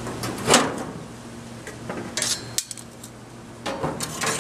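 Metal cooking grates of a charcoal smoker being slid back into place, clanking and scraping against the firebox. Several sharp clanks, the loudest about half a second in, with a cluster of them near the end.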